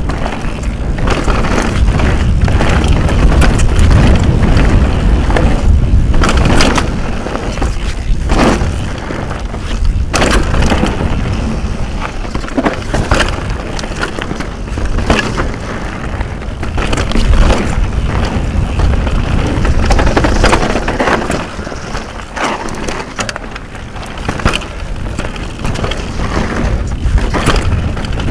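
Propain Rage Carbon downhill mountain bike running fast over rocky, loose dirt singletrack: tyres crunching on gravel and the bike clattering and knocking over bumps, under a heavy low wind rumble on a helmet-mounted action camera's microphone.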